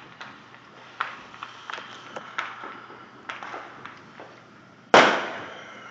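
Fireworks going off: a string of sharp pops and cracks, then a much louder bang about five seconds in that fades out slowly.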